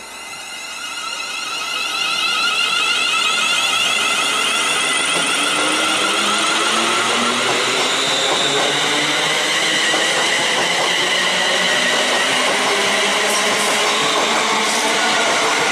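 ScotRail Class 380 electric multiple unit pulling away and passing close by. Its electric traction whine shows as several tones rising in pitch over the first half, under steady wheel-on-rail running noise that grows over the first two seconds and then holds as the carriages go past. No horn is sounded.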